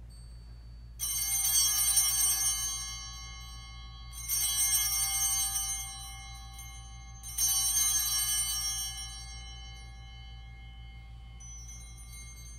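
Altar bells, a cluster of small bells, rung three times about three seconds apart, each ring sounding several high tones that fade slowly. They mark the elevation of the chalice at the consecration of the Mass.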